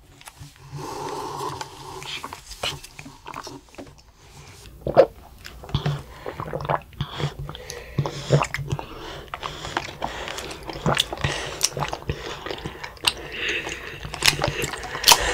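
Bubble tea being slurped up through wide straws, with tapioca pearls and konjac jelly sucked up and chewed, close to the microphone. Scattered sharp clicks and knocks throughout, the loudest about five seconds in and near the end.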